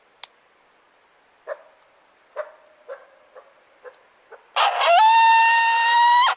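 Coyote call imitating coyote vocalisations: a run of about seven short yips, then a long, loud howl that rises briefly, holds one steady pitch and cuts off suddenly.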